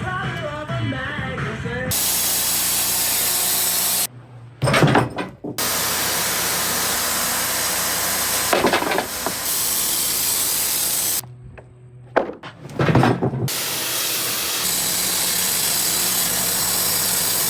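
Saw cutting through a black locust log, a steady, loud cutting noise that starts and stops abruptly several times, with two short breaks holding brief knocks. Background music is heard under the first two seconds.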